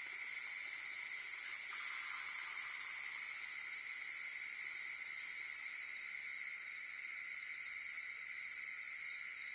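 Night insects calling in a steady chorus, a continuous high-pitched trilling with a fast pulse in its highest part.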